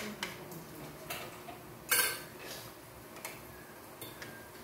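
Eating utensils and tableware clicking and clinking: scattered sharp taps, with the loudest clatter about two seconds in.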